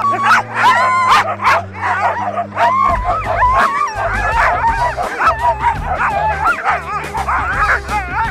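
A team of harnessed sled dogs (huskies) barking, yelping and howling together without pause, loud and overlapping: the dogs are excited and straining to start a training run.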